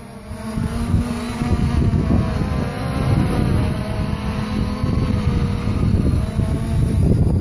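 3DR IRIS+ quadcopter's brushless motors and propellers buzzing as it hovers low and comes down, the pitch wavering slightly as it holds against gusts. Heavy wind buffets the microphone throughout.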